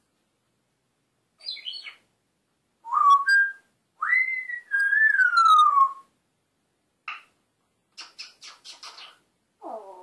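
African grey parrot calling and whistling: a short call, then a brief whistle, then a long whistle of about two seconds that rises and slowly falls in pitch. A quick run of about six clicks follows, and a low gruff sound comes near the end.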